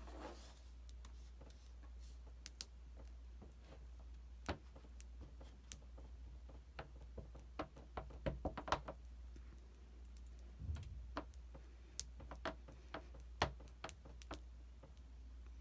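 Irregular light taps and clicks of a clear stamp being pressed and tapped repeatedly onto an Archival ink pad to ink it up, with quicker bunches of taps about halfway through and again near the end.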